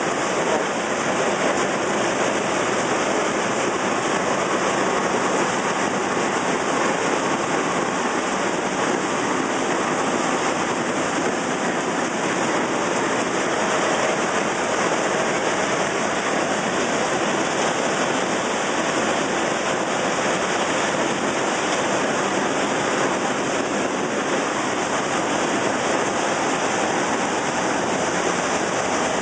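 Running puffed-snack extrusion production line: a steady, even rushing hiss of machinery noise with no clear rhythm or tone.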